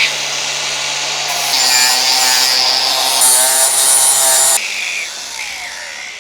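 Power tool working on steel pipe: a steady, loud hiss over a low hum and a wavering whine, changing abruptly twice, then fading away after about four and a half seconds.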